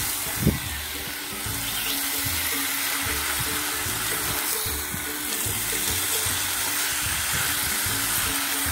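Marinated chicken pieces and chopped onion sizzling in a hot pan while being stirred and turned with a silicone spatula, with one sharp knock about half a second in. Background music plays steadily underneath.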